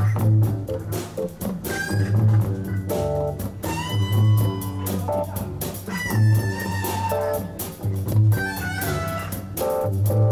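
Live jazz-blues band playing: a held, bending electric guitar lead over a bass guitar line with strong low notes every couple of seconds, and a drum kit.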